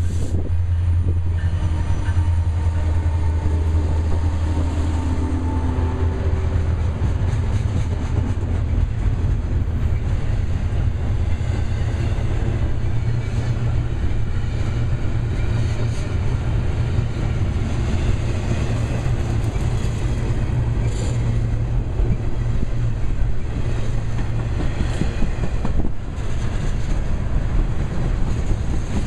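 An EMD SD70M and a GE C44-9W diesel locomotive pass close by; their engine tones fade out about seven seconds in. Double-stack intermodal well cars then roll by with steady wheel-on-rail noise.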